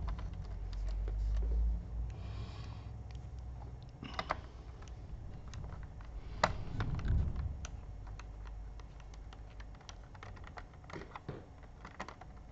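Small screwdriver clicking and tapping against screws and the plastic underside of a laptop as the screws are taken out: scattered sharp clicks, the loudest about six and a half seconds in, with low handling rumble in the first couple of seconds.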